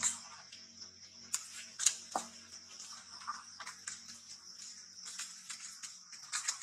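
Steady, high-pitched buzzing of a chorus of cicadas or crickets, with scattered sharp clicks and rustles of leaves and twigs. The clicks come in a cluster in the first couple of seconds and again near the end.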